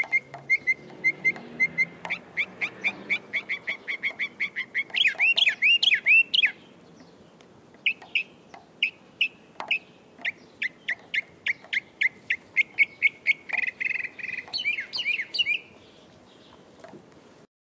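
Northern mockingbird singing: fast runs of short, high chirps repeated several times a second, some as sweeping upslurred notes, with a short pause about seven seconds in before more repeated runs. The song stops abruptly near the end.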